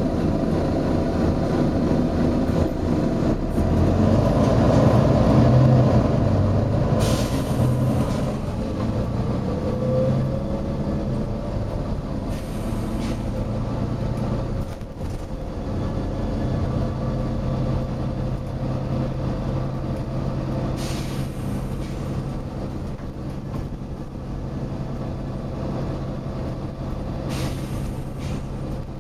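Volvo B9TL double-decker bus's diesel engine running, its pitch shifting in the first half and then settling to a steady idle. Four short hisses of compressed air from the bus's air system, each about a second long.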